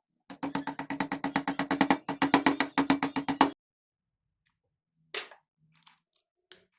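Rapid ratcheting clicks, about ten a second, in three quick runs, from a ratchet mechanism being worked. A single sharp click follows about five seconds in.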